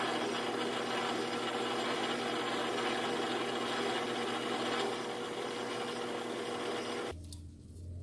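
Metal lathe running while its tool takes a light cleanup pass on a bar stock: a steady mix of motor hum and cutting noise. It cuts off suddenly about seven seconds in, leaving a low hum and a few faint clicks.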